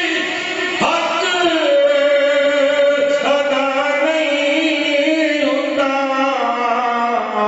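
A man chanting devotional verses into a microphone in long, drawn-out notes with slow ornamented glides in pitch.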